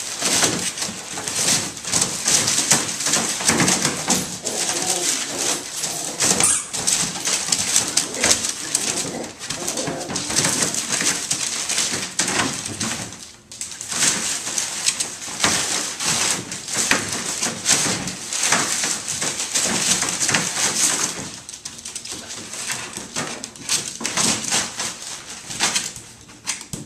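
Newspaper rustling and crinkling under beagle puppies scrambling and wrestling on it in a plastic kiddie pool, with low puppy growls mixed in. The rustling stops briefly about halfway through.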